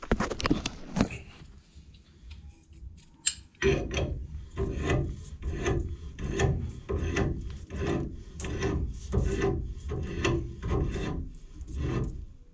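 Pliers turning a brass automatic air vent down onto its threaded fitting, after a few handling knocks in the first second. From about four seconds in comes a regular rasping, about two strokes a second, as the jaws grip, turn and reset on the brass.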